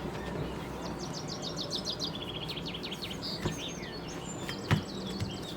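Small songbird chirping in quick trills and twitters over a low steady hum, with a single short knock about three-quarters of the way through.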